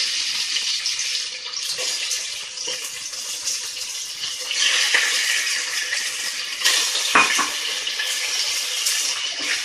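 Raw boneless chicken pieces sizzling in hot olive oil with chopped garlic in a pan on high heat, stirred with a wooden spatula: a steady, loud frying hiss, with a single knock about seven seconds in.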